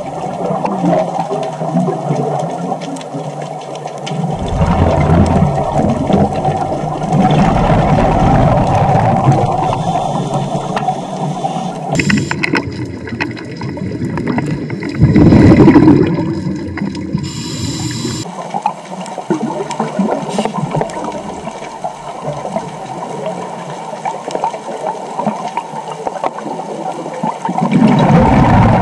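Scuba diver's regulator breathing heard underwater through a camera housing: muffled rushing and gurgling, with exhaled bubbles rumbling in surges a few seconds long. The loudest surge comes about halfway through.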